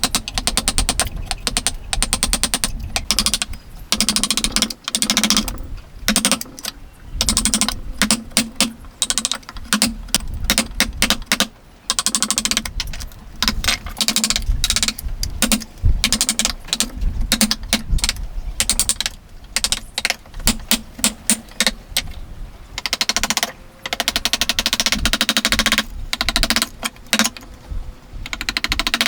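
Hand tools working wood: rapid runs of sharp clicking strokes in bursts of a second or two, with short pauses between them.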